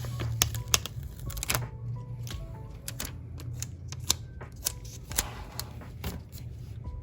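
Sticker sheets and paper being handled and stickers peeled and pressed down, giving irregular crisp clicks and crackles, over soft background music.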